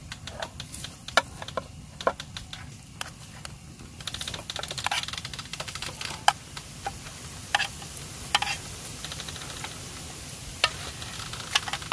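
A metal spoon scraping and clicking against an aluminium mess tin as cooked food is scooped out onto a plate: irregular sharp clinks and scrapes over a low steady rumble.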